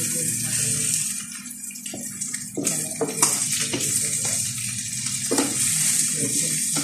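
Marinated chicken pieces sizzling in a frying pan over a gas flame, a steady hiss, with a slotted spatula and fork scraping and knocking against the pan a few times.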